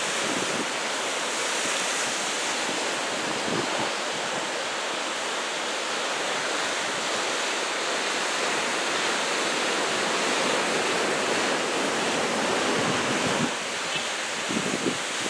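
Ocean surf from a large typhoon swell breaking and washing ashore as a steady rush, with wind buffeting the microphone now and then.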